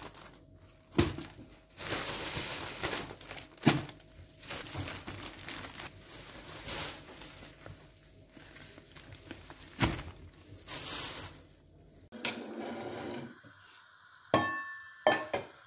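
Plastic-wrapped groceries being handled: crinkling packaging, with a sharp knock three times as items are set down on the countertop. Near the end, two sharp clinks with a brief ring.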